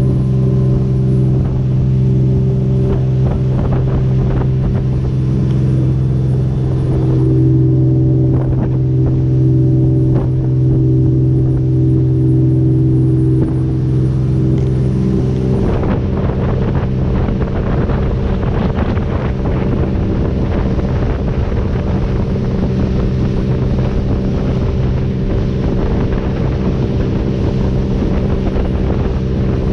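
Center-console fishing boat's engine running steadily under way, a low even engine note; about fifteen seconds in the note shifts slightly. Wind noise on the microphone runs over it.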